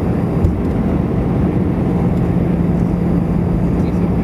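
Airbus A319 cabin noise heard from inside, on approach: a steady rush of jet engine and airflow noise with a steady low hum.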